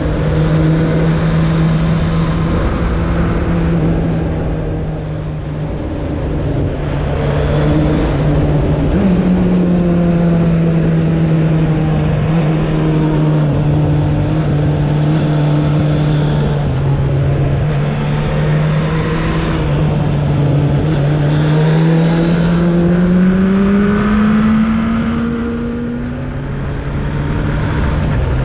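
Suzuki Bandit 1200 inline-four engine running under way, heard from on the bike over wind and road noise. Its pitch jumps up about a third of the way in and then sinks slowly, climbs steadily for a few seconds near the end as the bike accelerates, then drops at what sounds like a gear change.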